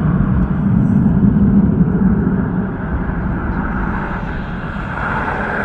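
Low, distant rumble that swells over the first couple of seconds and then eases off, heard over steady highway traffic noise.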